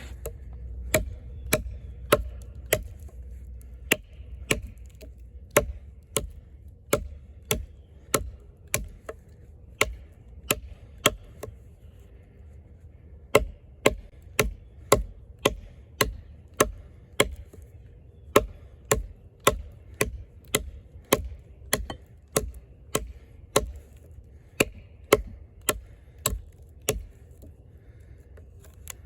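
Eafengrow EF-143 fixed-blade camp knife chopping into a log: a steady run of sharp blade-on-wood strikes, a little under two a second, with a brief pause about twelve seconds in.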